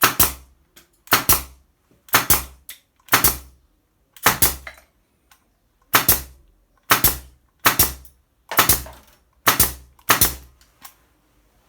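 Makute pneumatic nail gun test firing, about eleven sharp shots at roughly one a second, with a short pause near the middle. Each shot is a sudden report with a brief tail.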